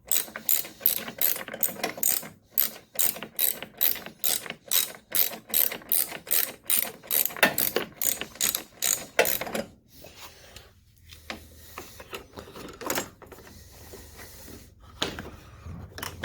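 Ratchet wrench clicking as a battery tie-down bolt is loosened, about three clicks a second. After about ten seconds the clicks stop and only a few scattered ones follow.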